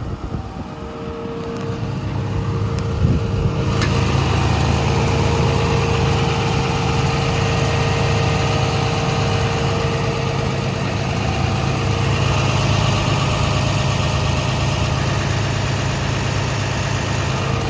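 Komatsu PC210LC-10 excavator's six-cylinder diesel engine running at a steady idle. It grows louder over the first few seconds, then holds steady.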